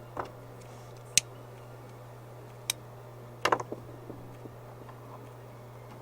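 A few sharp clicks and taps of small hand tools being handled at a wire-splicing workbench. There are four in the first four seconds, the loudest about a second in and a short rattle of them a little past halfway, over a steady low hum.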